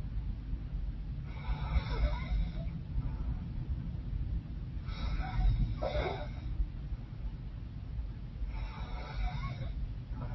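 A woman snoring in her sleep through a congested, runny nose: three noisy, wheezy breaths about three and a half seconds apart, with a faint nasal whistle, over a constant low rumble.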